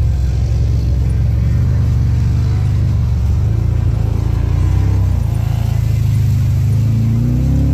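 Side-by-side UTV engine running steadily under throttle, a loud low rumble that rises in pitch near the end as the engine revs up.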